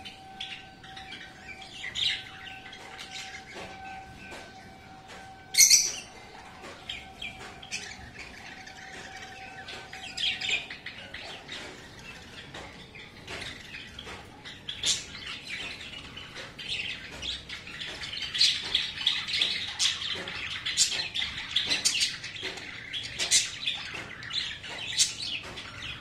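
A flock of caged budgerigars chirping, the chatter growing denser and louder over the last third. One sharp, loud sound stands out about six seconds in. A faint steady whine runs under the first ten seconds, then stops.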